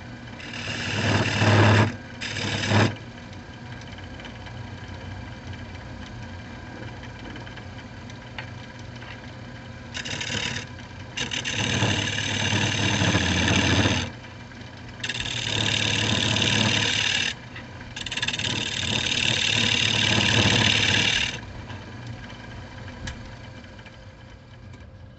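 Wood lathe motor running with a steady hum while a turning tool cuts into a spinning cherry blank in repeated passes of one to three seconds, each pass a loud scraping hiss of wood being cut. After the last pass, about four fifths through, only the motor hum is left, fading toward the end.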